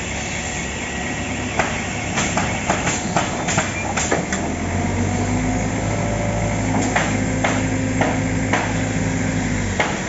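Automatic stringer pallet nailing machine running: a string of sharp nailing shots, about one to two a second, over a constant machine rumble. A low steady hum joins about halfway through and stops just before the end.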